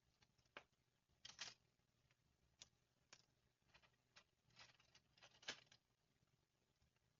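Near silence, broken by a few faint clicks and light rustles of small vintage items such as keys and buttons being handled.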